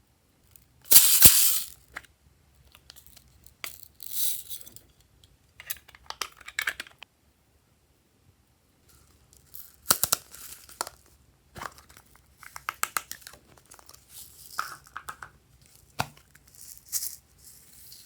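Glossy slime being worked by hand: bursts of sticky crackling and popping clicks as it is pressed, stretched and folded, with short pauses between handlings. The longest, loudest burst comes about a second in.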